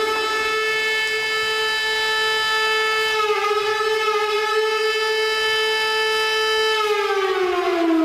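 Amur Khabarovsk's arena goal horn, a siren: it has wound up to one steady pitch, holds it for several seconds with a brief wobble about three seconds in, then starts winding down about a second before the end.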